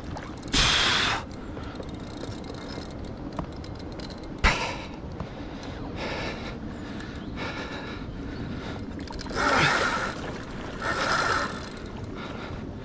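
Fight with a hooked catfish close to the boat: several short, loud rushes of sound from the fish swirling and splashing at the surface and the angler's heavy breaths, with a sharp knock about four and a half seconds in.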